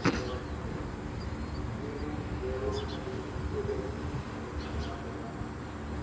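Steady hum of an air conditioner fan with faint bird calls now and then, and a sharp click right at the start.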